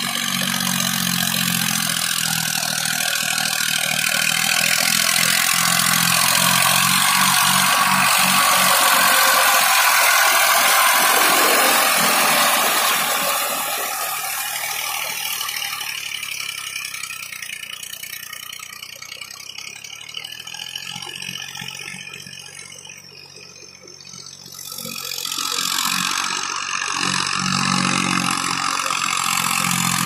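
Tractor engine running under load while it drags a rotary tiller through a flooded, muddy paddy. It grows loud as it passes close, fades as it draws away over the middle of the stretch, then swells again near the end.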